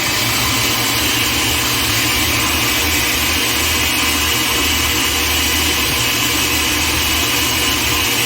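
Countertop blender running steadily, puréeing leftover vegetable soup with water.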